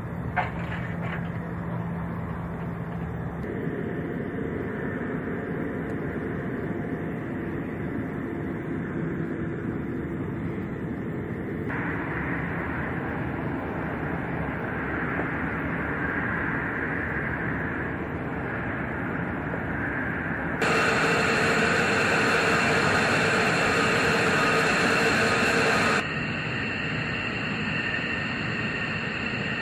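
Jet engine noise: a steady rush with a high whine that changes abruptly in tone and level four times, loudest for several seconds about two-thirds of the way in. There is a single sharp click right at the start.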